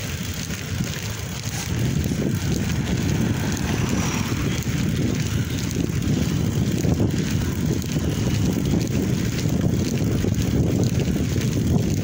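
Wind buffeting a phone's microphone on a moving bicycle: a steady low rumble that grows a little louder about two seconds in.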